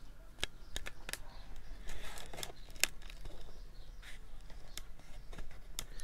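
Irregular light clicks and rustling as the bare motor of an electric stand fan, blades and cover removed, is handled and moved about.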